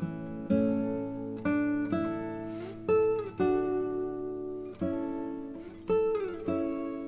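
Intro music: acoustic guitar strumming chords, some notes sliding in pitch.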